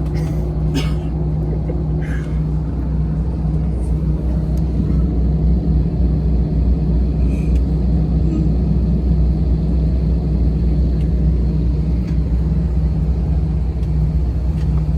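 Airliner cabin drone from the jet engines running at idle, steady and low, heard from inside the cabin. A few light clicks come in the first two seconds, and a faint high whine joins about four seconds in.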